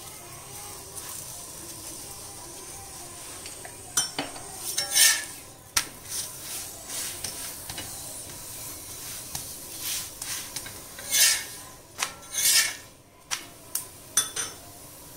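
Metal spatula scraping and pressing a ragi chapathi against a hot dosa tawa, over a light sizzle. Clusters of short scrapes come about four seconds in and again from about ten seconds.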